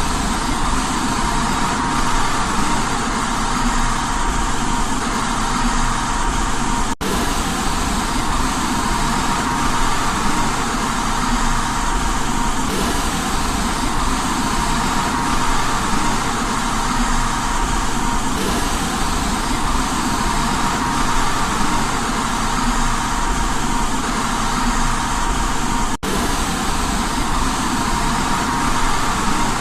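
Steady white noise played for baby sleep, an even hiss and rumble with a faint steady tone in it. It cuts out for an instant twice.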